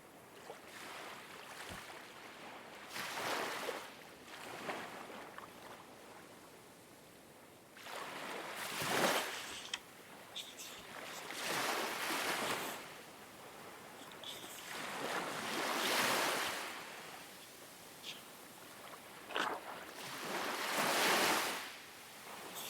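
Ocean waves washing in, in swells of a second or two that rise and fall about every three to four seconds, with a few faint short ticks between them.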